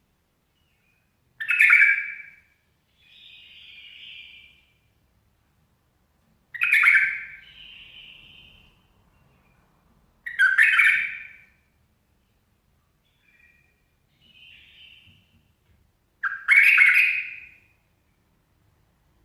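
A bulbul calling: four loud, short phrases a few seconds apart. The first three are each followed by a softer, quieter note.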